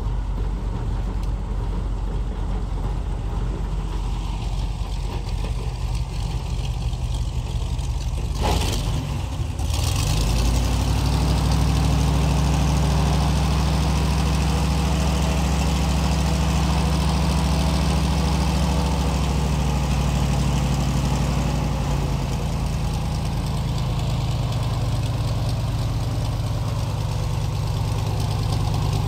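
Airboat engine running at idle, then revving up about ten seconds in after a brief rush of noise, and holding at a higher, steady speed. It eases off slightly past the two-thirds mark and picks up again near the end.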